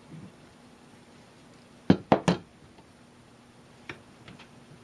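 Three sharp knocks in quick succession about two seconds in, followed by a couple of faint ticks: hard objects being handled and set down at the workbench.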